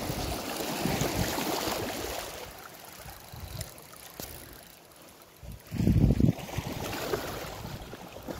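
Small waves lapping and trickling over rocks in shallow seawater. About six seconds in there is a loud, low rumble of the microphone being knocked or rubbed by hand or clothing.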